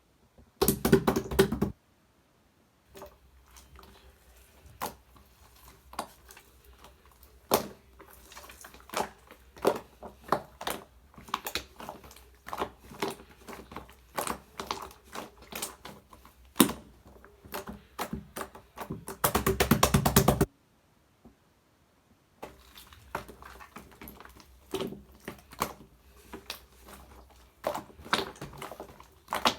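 Slime being pressed, poked and folded by hand, making irregular sticky clicks and pops. Two louder, denser squishing stretches come about a second in and about two-thirds of the way through.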